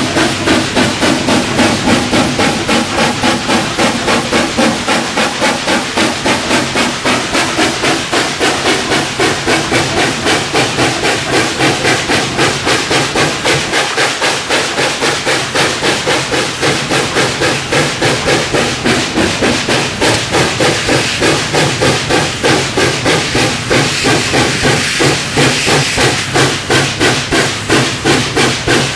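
1924 H.K. Porter saddle-tank steam locomotive working hard at full throttle and short cutoff: a steady, even rhythm of loud exhaust beats from the stack over a constant steam hiss.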